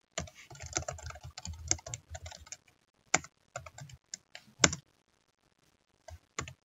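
Typing on a computer keyboard: a quick run of key clicks, then a few single presses with one louder strike a little after the middle, a pause of about a second, and a couple more taps near the end.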